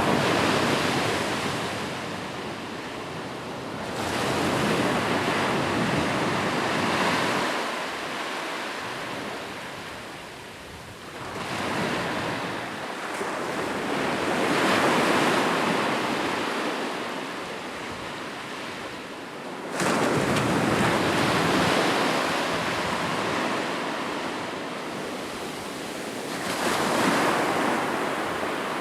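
Ocean surf breaking and washing ashore, the rushing noise swelling and falling back about five times, with one wave coming in suddenly about two-thirds of the way through.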